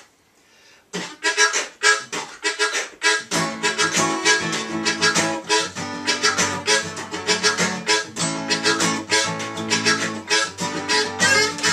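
Acoustic guitar strummed in a steady rhythm, with harmonica playing over it: the instrumental intro of a song. The strumming starts about a second in, and the sound fills out with held notes from about three seconds in.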